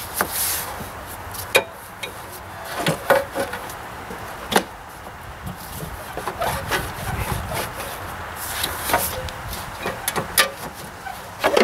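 John Deere 2032R fuel tank being worked out past a frame bar: irregular knocks and clicks as the tank scrapes and rubs against the tractor's frame.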